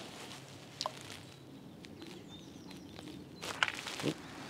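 Quiet outdoor ambience by a lake: a faint steady background with a few short bird chirps, and a brief cluster of clicks and rustles about three and a half seconds in.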